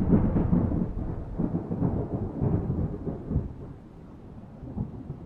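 Muffled, crackling rumble of thunder that slowly fades away over a few seconds.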